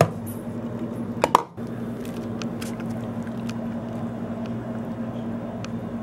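Thick egg, milk and Bisquick batter being poured from a plastic bowl over shredded cheese and beef in a glass pie dish, with soft wet squishing and a few small ticks. There are two light knocks about a second in, over a steady low hum.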